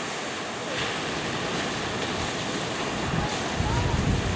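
Ocean surf breaking and washing in along the beach, with wind rumbling on the microphone that grows heavier about three and a half seconds in.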